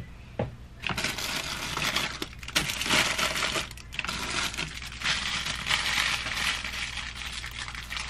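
Plastic snack wrappers crinkling and rustling as packaged snacks are handled, with small knocks and clicks of packages against clear plastic bins.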